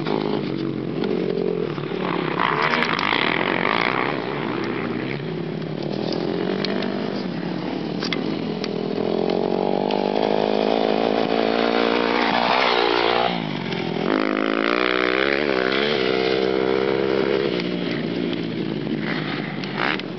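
Dirt bike engine revving up and down with the throttle as it rides across the field, loudest near the middle as the bike comes close, with a quick drop and rise in pitch a little past halfway.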